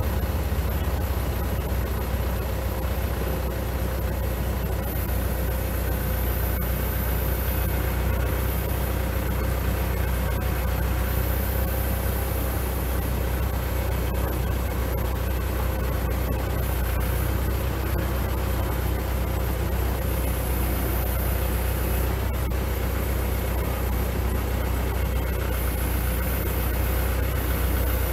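Kubota L4701 tractor's diesel engine running steadily.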